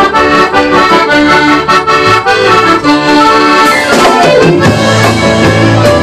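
A band plays an instrumental passage: a melody line over a steady beat, with a quick falling run about four seconds in, after which bass notes come in.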